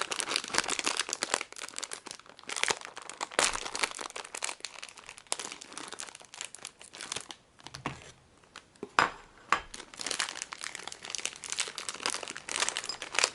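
Crinkling and rustling of Chocobi snack packaging being handled and opened, a dense run of crackles with a short lull about eight seconds in, followed by a couple of sharper clicks.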